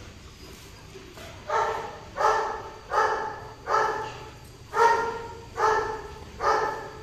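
Golden retriever barking: seven short, high barks, each rising sharply and fading, a little under a second apart.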